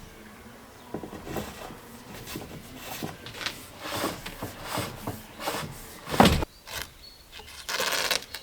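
Irregular rubbing and knocking on wood during hand work, with one louder knock about six seconds in and a short burst of scraping near the end.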